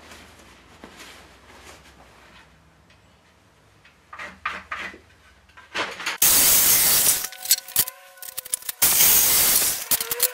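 Soft scraping and knocking of boards being handled on a sawhorse, then from about six seconds in, loud bursts of a reciprocating saw cutting pallet wood. Between the bursts the motor gives a steady whine.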